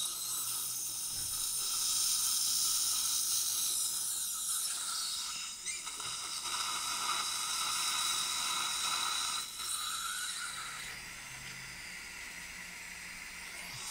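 Dental surgical suction tip hissing steadily, with a steady whine from the implant drill motor as the implant site is drilled. The sound dips briefly twice and is quieter in the last few seconds.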